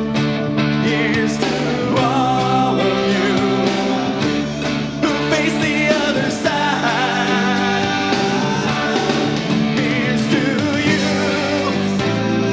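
1980s pop song played by a band, with synthesizer keyboard chords and singing over a steady beat.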